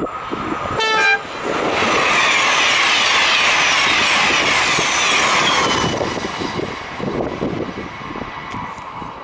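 TGV Réseau high-speed train sounding a short horn blast about a second in, then passing at speed with a loud rush of wheels and air that falls in pitch and fades after about four seconds as it recedes. Wind buffets the microphone throughout.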